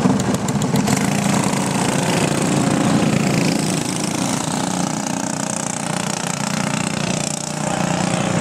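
Several small go-kart engines running and revving as the racing karts pull away from the grid and drive off round the track. A close engine's rapid, even firing pulses blend into a steadier, fading drone after about a second.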